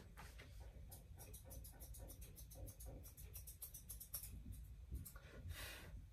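Faint, quick scratchy strokes of a grooming comb through a Persian cat's long fur, several a second, stopping after about four seconds, then one softer, longer swish near the end.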